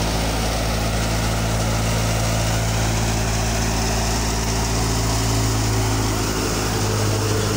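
Tractor diesel engine running steadily as it drives a grain thresher, its drum and fan adding a continuous whirring rush with a steady low hum.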